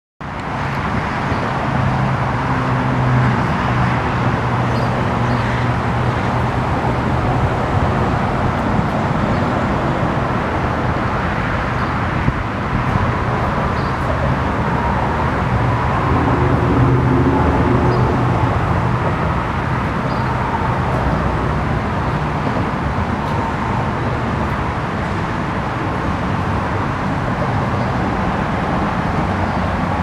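Steady outdoor road-traffic noise, with a low engine hum that swells twice as vehicles go by.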